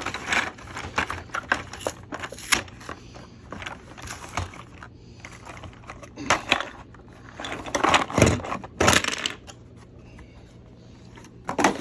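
Toy packaging being handled and pulled apart: irregular rustling and clicking, with a few louder crackles in the second half.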